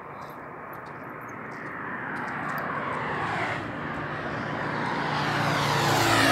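A motor vehicle approaching and passing close by, its engine and road noise growing steadily louder over several seconds to a peak at the very end.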